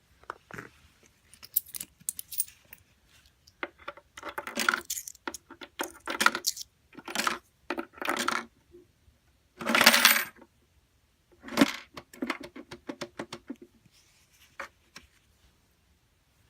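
Coins dropping and clattering through a LEGO brick vending machine: a string of separate clicks and short rattles, with the longest, loudest rattle about ten seconds in.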